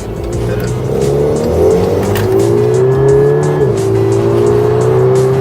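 VW MK6 Golf GTI's turbocharged 2.0-litre four-cylinder, fitted with an IE cold air intake, accelerating hard with its engine note and intake sound rising. About three and a half seconds in the pitch drops suddenly at an upshift, then climbs again.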